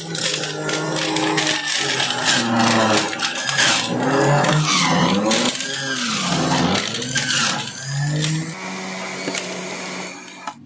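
Kitchen Cook 7-in-1 electric juicer running while carrots are pushed through it. The motor's pitch sags and recovers under the load, with crunching clicks from the shredding carrot. It runs more steadily and quietly near the end.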